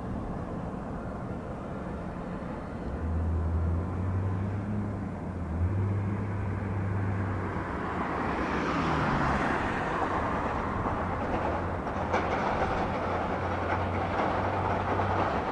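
Engines of airport ground-support vehicles running, with a steady low hum. About halfway through a louder rushing noise builds and holds, like a vehicle drawing near.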